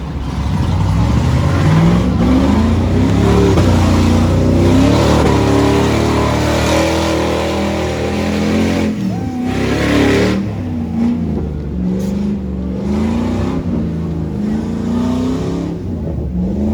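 An off-road 4x4's engine revving hard in repeated surges, its pitch rising and falling; it drops off briefly about nine seconds in, then revs up again.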